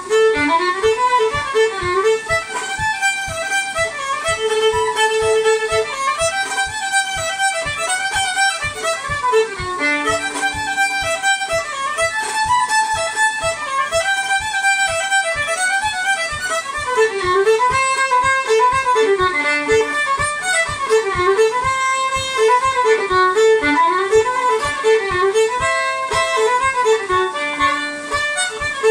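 Solo fiddle playing a lively tune in a run of quick bowed notes, with a soft low beat about twice a second underneath.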